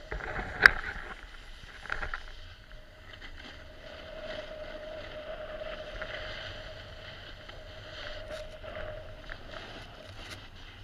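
Snowboard sliding and carving down a snowy slope: a steady hiss of the board scraping over the snow. A sharp knock comes about a second in, the loudest sound, with a smaller one shortly after.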